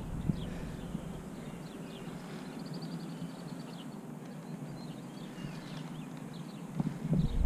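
Birds chirping repeatedly over a steady outdoor background hum. A low rumble comes up near the end.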